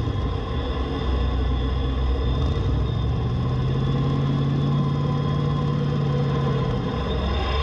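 Off-road vehicle's engine idling steadily while the vehicle sits still, a continuous low hum whose pitch shifts slightly about a second in and again near the end.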